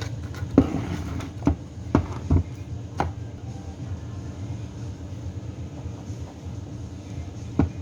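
Fetal Doppler loudspeaker giving a steady low static hum with no heartbeat coming through, broken by about half a dozen sharp knocks and crackles, most of them in the first three seconds and one near the end. The silent heartbeat fits a broken cable inside the probe.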